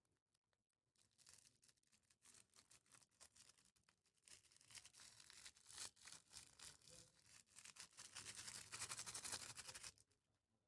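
Crunchy slime with floam beads being squeezed and worked out of plastic piping bags: dense fine crackling and popping that builds up, is loudest near the end, and cuts off suddenly.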